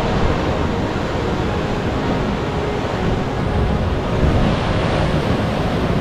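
Ocean surf breaking and washing over and around shoreline rocks, a continuous rushing that swells and ebbs slightly.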